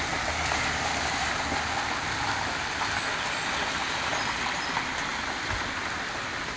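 Steady rain falling, with runoff water streaming across gravel, a constant even hiss.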